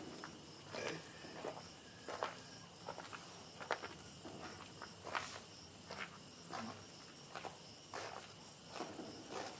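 Crickets chirping in a steady, high, pulsing trill, with scattered soft clicks and rustles.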